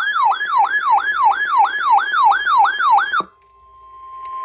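Electronic siren wailing quickly up and down, about three sweeps a second, cuts off sharply about three seconds in. A steady single tone near 1 kHz then fades in: the emergency alert tone that opens a weather warning broadcast.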